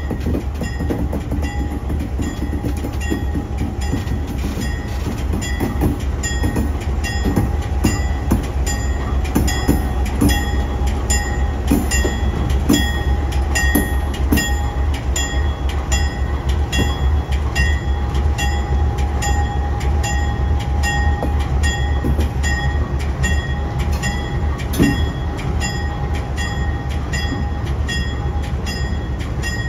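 Diesel locomotive rolling slowly past close by, its engine giving a steady low rumble while the wheels click and knock over the rail joints.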